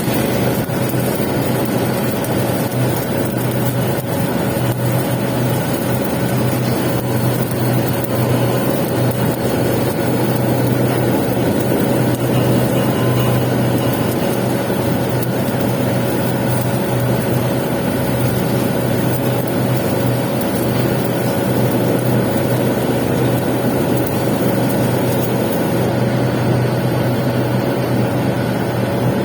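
Welding equipment running steadily during a pipe capping pass: an even electrical hum under a continuous hiss, with no breaks or changes.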